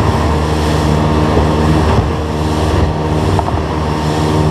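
Evinrude 70 two-stroke outboard running steadily at speed, with the rush of wind and water as the tri-hull runs through chop.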